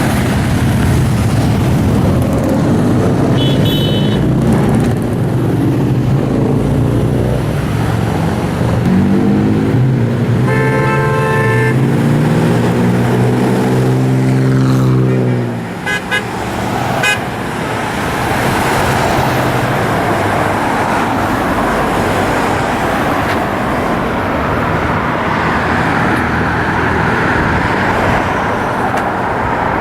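Steady roar of heavy freeway traffic with car horns honking at the protest: a short toot about 4 s in, a longer horn blast around 10 to 12 s, and quick toots around 16 to 17 s. Under the middle horn a deep drone falls slowly in pitch as it passes.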